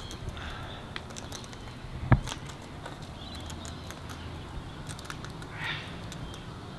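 Sulphur-crested cockatoos feeding at a seed dish: scattered small clicks of beaks cracking sunflower seeds and pecking the dish, with one sharper knock about two seconds in.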